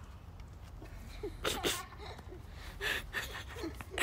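Faint, distant children's voices calling out on the field, a few short bursts, over a steady low rumble.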